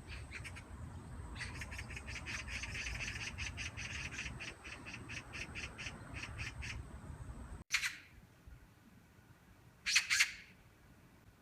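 Magpie chattering: a rapid rattle of harsh notes, about five a second, lasting several seconds. After a cut in the recording it gives single harsh calls: one, then a quick pair a couple of seconds later.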